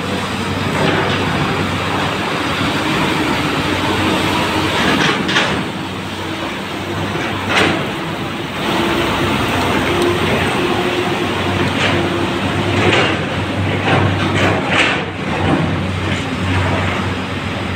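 Diesel dump truck and excavator running inside a rock tunnel, a loud steady engine drone. A few short sharp knocks come through it, about five seconds in and again around thirteen to fifteen seconds.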